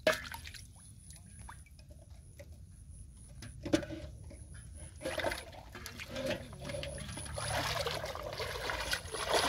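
Water splashing and trickling as a plastic bottle fish trap is emptied into a metal pot and the pot is moved through shallow water. There is a sharp knock right at the start and another a little under four seconds in, and the splashing grows steadily louder over the second half.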